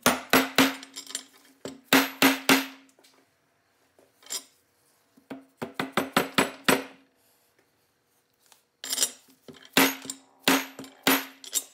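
Hammer strikes on a flat steel tool driving a new wastegate bushing into the bore of a BMW N54 turbocharger housing. Sharp metallic taps, each with a short ring, come in runs of several quick strikes with pauses between.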